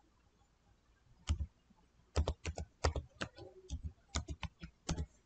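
Typing on a computer keyboard: a single keystroke after a quiet first second, then a run of a dozen or so quick, irregular key clicks.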